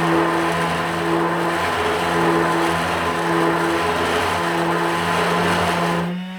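DeWalt 20V brushless palm sander running against wood: a steady motor hum under the scratchy hiss of sandpaper rubbing the surface. Near the end the scratching stops and the hum rises a little in pitch as the sander runs free off the work.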